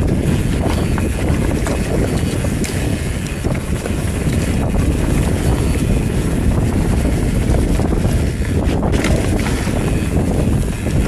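Wind rushing over the camera microphone on a Commencal Meta TR29 mountain bike riding down a dry dirt singletrack, with the steady rumble of the tyres on the trail and a few short clicks and rattles from the bike.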